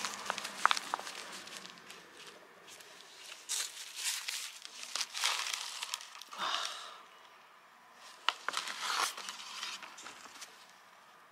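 Soft black plastic nursery pot squeezed and worked off a seedling's root ball by gloved hands: crinkling and rustling in irregular bursts, with a few light clicks about a second in.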